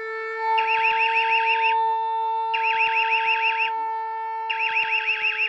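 Electronic alarm sound effect: a steady droning tone under repeated bursts of rapid warbling chirps, three bursts each about a second long and about two seconds apart.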